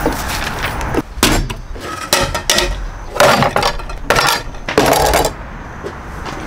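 Cookware being set out on a wooden table: a run of clatters and knocks from a metal pot, strainer and a plastic tub over about four seconds.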